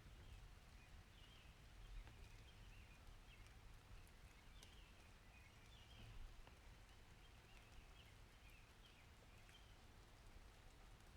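Faint summer-storm ambience: a low distant rumble with small birds chirping softly throughout.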